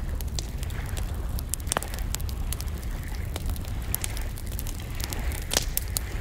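Low rumble of wind on the microphone, with scattered sharp clicks and crackles.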